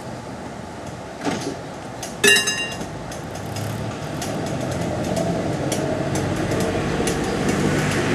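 Vintage tram approaching on its rails, the low rumble of its wheels and motors growing steadily louder from about three seconds in. About two seconds in there is a single short metallic ring.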